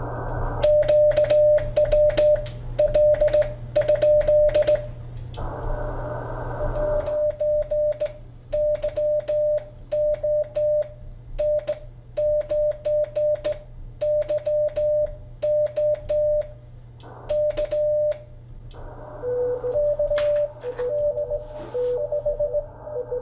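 Morse code (CW) sent by hand on a straight key, heard as the Icom IC-7300's sidetone: a single beep keyed on and off in dots and dashes, with a click at each key stroke. Near the end receiver hiss comes up and a second, slightly lower Morse tone, another station answering, alternates with it.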